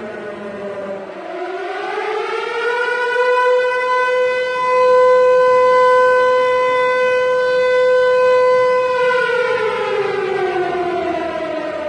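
Civil defense siren, said to be a Harry O Ricci (H.O.R) Siro-Drone, wailing. Its pitch dips early, climbs to a steady held tone for about six seconds, then falls away and starts climbing again near the end.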